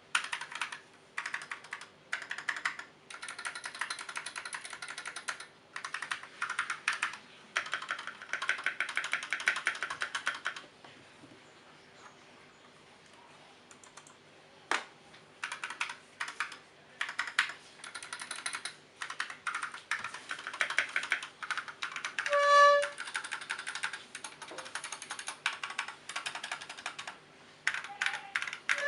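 Typing on a Koodo Arcadia 68% mechanical keyboard with unlubed Gateron Brown tactile switches and Akko ASA-profile keycaps: runs of fast keystrokes, with a pause of a few seconds near the middle. A short pitched tone sounds about two-thirds in.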